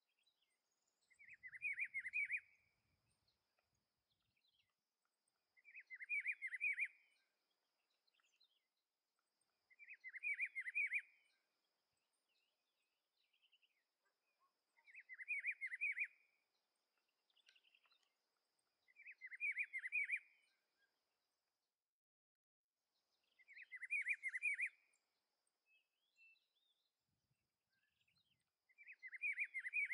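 Rufous-browed peppershrike (pitiguari) singing: a short phrase of quick whistled notes, repeated seven times about every four to five seconds, over a faint steady high tone.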